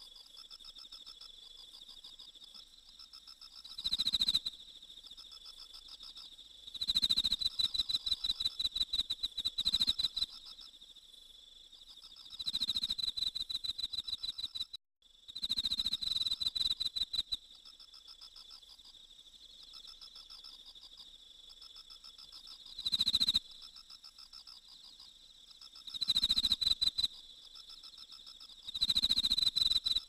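Crickets singing: a steady high trill underneath, with louder bursts of rapid chirping, about seven of them, each lasting one to three seconds.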